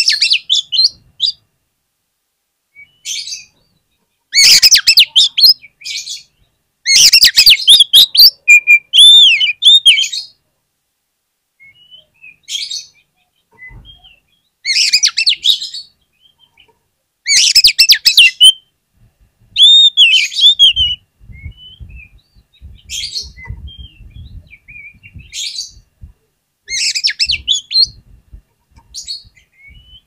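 Oriental magpie-robin (kacer) singing: loud bursts of varied whistled and chattering phrases, separated by short pauses. Soft low knocks come in the latter half.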